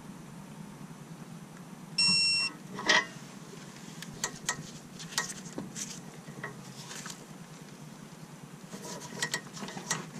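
A single short electronic beep, about half a second long, about two seconds in. A sharp metallic click follows, then scattered light metal clinks and taps from hand tools on the sway bar end link and its nut.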